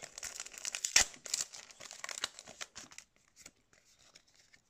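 Foil wrapper of a Pokémon card booster pack crinkling and tearing as it is ripped open, with a sharp crackle about a second in. After about three seconds it drops to faint rustles and ticks of the cards being handled.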